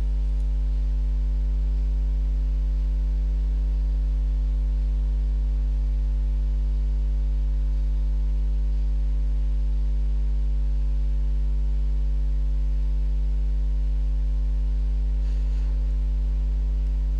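Steady electrical mains hum at about 50 Hz with a ladder of overtones up to about 1 kHz, unchanging and fairly loud, with no other sound over it.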